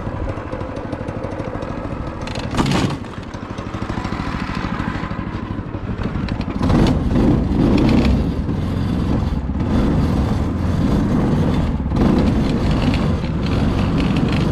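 Yerf-Dog 3203 go-kart's engine running as the kart drives through snow, with a brief sharp clatter about two and a half seconds in. The engine gets louder from about six and a half seconds on and stays up.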